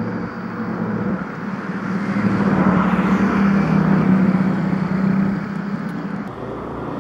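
Lockheed C-130 Hercules's four turboprop engines humming as it flies past low overhead, a steady propeller tone with rushing noise that grows to its loudest about halfway through and then fades.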